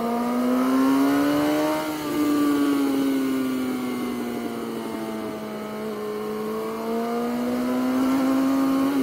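Sport motorcycle engine running hard at highway speed. Its pitch climbs for about two seconds, eases off, then sags slowly and climbs again near the end, over a steady hiss of wind on the microphone.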